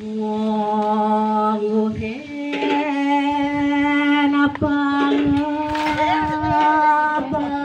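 Voices chanting in long, steady held notes, the pitch stepping up about two seconds in, with a single sharp click about four and a half seconds in.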